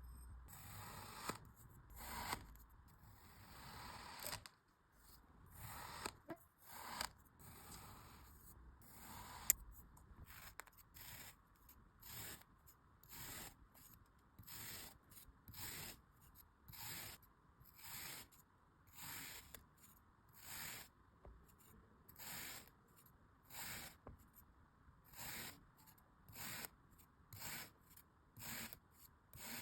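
Kinetic sand being cut with a blade: short gritty slicing strokes, irregular at first, then settling into a steady run of about one cut a second.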